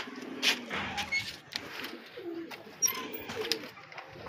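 Domestic pigeons cooing in a loft, with several sharp clicks and knocks, the loudest about half a second in and again near three seconds in.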